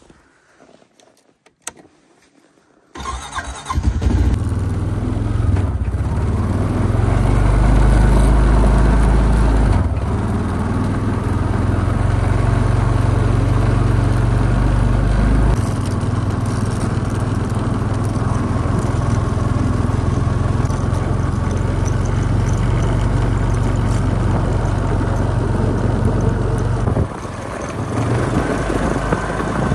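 Honda ATV engine starting suddenly about three seconds in, then running steadily as the four-wheeler drives off, its note shifting a few times and dipping briefly near the end.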